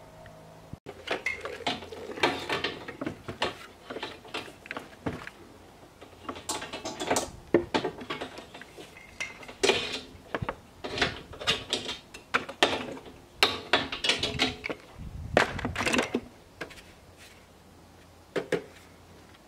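Irregular clatter of welding gear being handled and set down on a wooden table: metal clicks and knocks from the earth clamp, electrode holder and cables, some with a short metallic ring, stopping a few seconds before the end.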